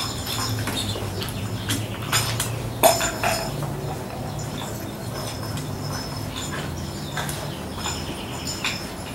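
Labrador puppies playing with toys on a concrete floor: scattered sharp clicks and knocks from a hard plastic treat ball and their toenails, the loudest knock a little under three seconds in.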